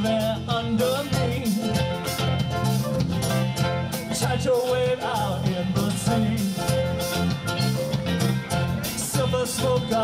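Live band music from electric guitars, bass and drum kit, playing an upbeat island-style rock song with a steady beat.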